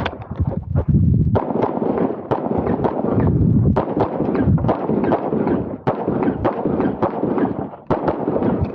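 Rapid handgun fire on an IPSC stage: shots in quick succession, with dense strings and brief pauses, each shot trailed by echo.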